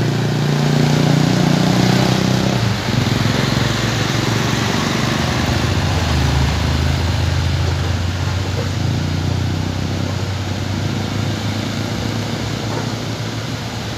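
Intercooler diesel engine of a heavy truck hauling a trailer of concrete poles, running hard at full power up a steep climb. About three seconds in the engine note dips and shifts, then settles into a lower steady drone, mixed with other vehicles passing close by.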